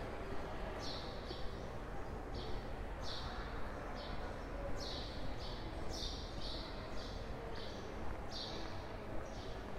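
Footsteps on pavement at a steady walking pace, about two steps a second, over a steady low background rumble.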